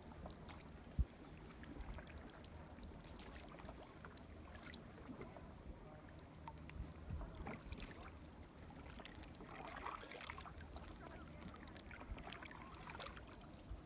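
Faint sounds of a canoe being paddled: the paddle dipping and water moving against the hull, with scattered small clicks. A single sharp knock comes about a second in.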